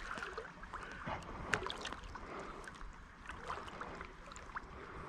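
Water lapping and trickling around a float tube on a slow river, with small irregular splashes and ticks.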